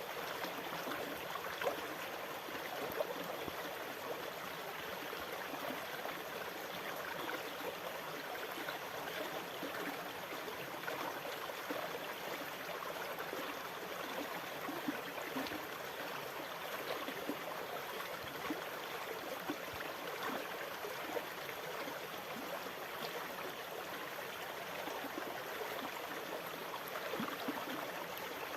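Running water burbling and trickling steadily, with small splashes scattered throughout and no rise and fall of breaking waves.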